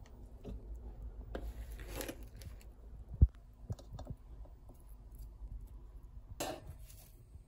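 Kitchen food-prep sounds with raw onion: scattered light knife taps on a cutting board, one heavy thud about three seconds in, and a short brushing rustle near the end as the chopped onion is pushed into a bowl of cut chives, over a low steady hum.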